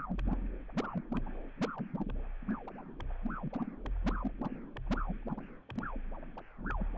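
Electronic soundtrack: a dense run of short scratchy sounds that swoop up and down in pitch, sharp clicks, and a deep rumble that swells and fades.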